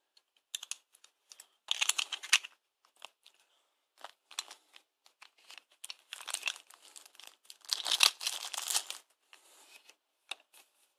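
Thin plastic packaging crinkling and rustling in irregular bursts as coins in plastic capsules are unwrapped. It is loudest about two seconds in and again from about six to nine seconds in.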